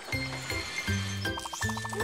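Upbeat cartoon background music with a bouncing bass line of short, evenly spaced notes.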